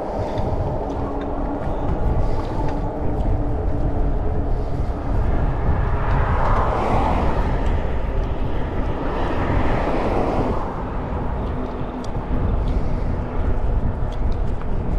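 Road traffic heard over a steady low rumble: two vehicles swell up and fade away as they pass, about six and ten seconds in.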